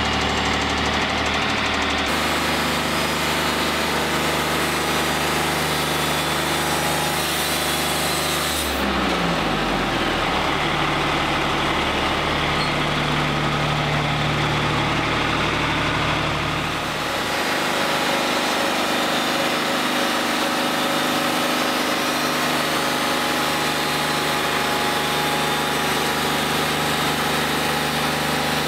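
Wood-Mizer LT40 Wide hydraulic portable sawmill running steadily while its head saws a timber. About nine seconds in the engine pitch drops sharply and settles lower, and the sound shifts again near 17 seconds.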